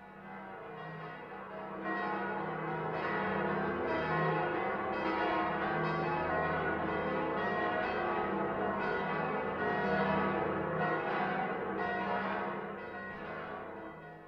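Several church bells ringing together in a full peal, the combined ringing of Frankfurt's Great City Ringing (Großes Stadtgeläut). It fades in over the first two seconds and fades out near the end.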